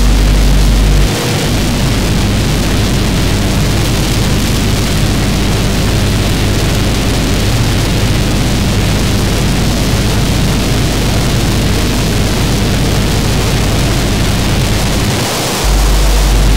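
Experimental noise music: a loud, dense wall of static-like hiss over a layered low drone. A heavy low rumble under it drops out about a second in and comes back just before the end.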